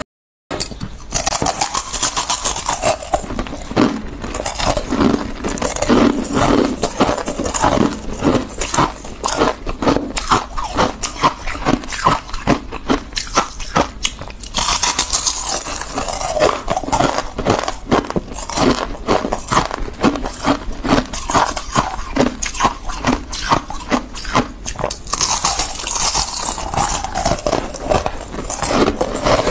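Refrozen freezer frost crunching and crackling, close-miked, as it is scraped up by hand from a tray and then bitten and chewed: a dense, unbroken run of crisp crunches.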